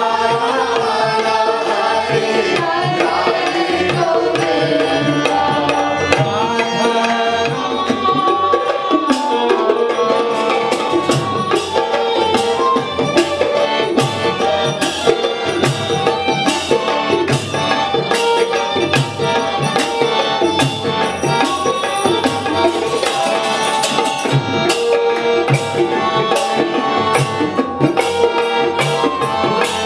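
Kirtan music: harmonium and violin holding the tune over a steady rhythm of mridanga drum strokes and clashing hand cymbals (kartals), with voices chanting.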